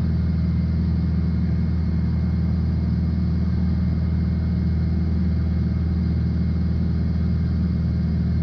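Steady cockpit drone of a Piper PA-46 Malibu's single piston engine and propeller in flight, a constant low hum with no change in pitch.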